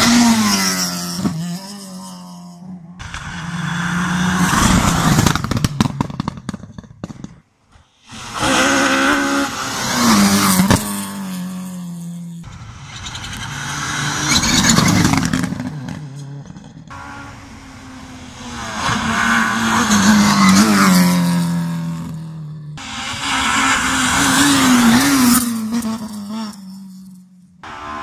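Rally cars on a tarmac stage road approaching and passing at speed one after another, engines revving hard through gear changes, each note rising as the car nears and dropping as it goes by. About six passes follow each other, with abrupt cuts between them.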